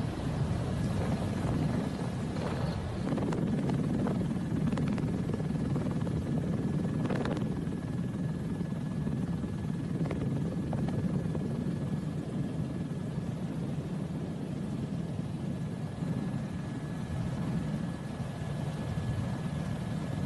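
Helicopter running steadily: a low rumble with a thin constant whine above it.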